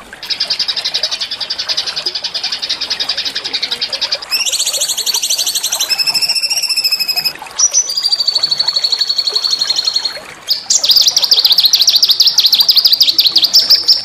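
Small songbird singing a string of rapid, rolling trills, switching to a different trill every few seconds, with two short breaks in the second half; the last trill is the loudest.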